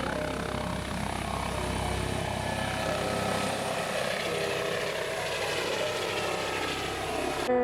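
Helicopter flying overhead: a steady rotor-and-engine drone whose pitch sinks slowly as it passes.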